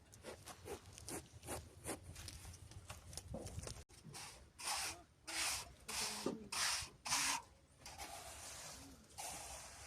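Repeated scraping strokes, about two a second, louder in the middle stretch.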